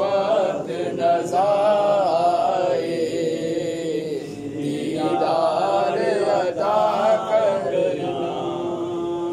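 A man chanting an Islamic devotional salutation to the Prophet (salawat) in long melodic phrases, his pitch sliding up and down.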